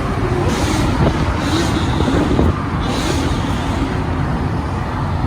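Loud car engines and exhausts running.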